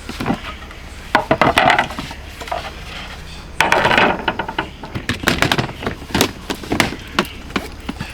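Camping gear being handled and set up: a run of knocks and clatter, with two louder rattling bursts, one about a second in and one near the middle.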